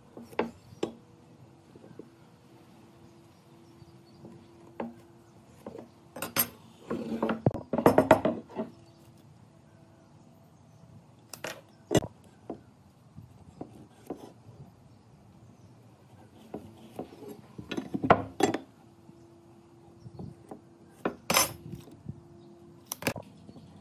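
Irregular knocks, taps and clinks of hand tools and wooden pieces being handled at a workbench, with two busier flurries of rapid knocking, one a quarter of the way in and one about three quarters of the way in.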